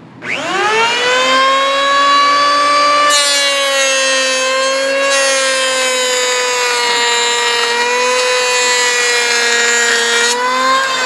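Porter-Cable 6-amp handheld electric planer switched on: the motor whines up to speed, then runs steadily. From about three seconds in until near the end, a dense hissing cut is added as the blades plane a pass at a 1/16-inch depth. At the very end the cutting stops and the motor's pitch starts to fall as it winds down.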